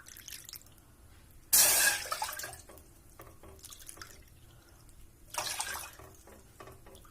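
Water poured into a saucepan, three cups in all: a loud splashing pour about a second and a half in and a shorter, weaker one near the end, with drips and small clicks between.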